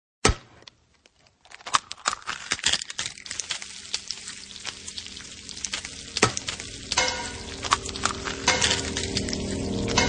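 A sharp click, then crackling sizzle with irregular clinks of pans and dishes, like food frying on a stove. Music with steady held notes swells in over the last few seconds.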